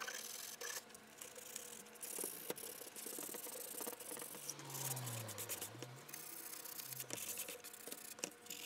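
Hand sanding of a cured epoxy resin coat on a 3D-printed PLA part with a sheet of sandpaper: faint, uneven scratchy rubbing strokes.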